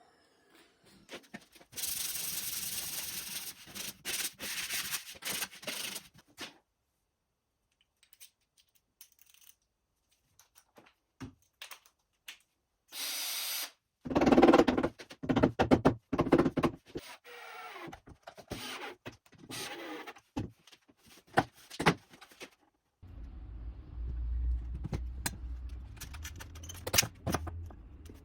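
Woodworking sounds in short edited clips: stretches of tool noise, rubbing, clicks and knocks, broken by cuts to dead silence. A low steady rumble comes in about four-fifths of the way through.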